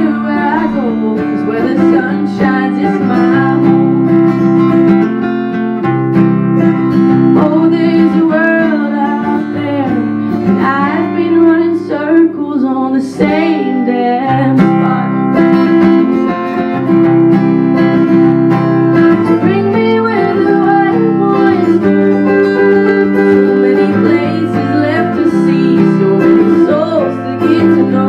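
A woman singing a song to her own acoustic guitar: a sung melody over strummed chords.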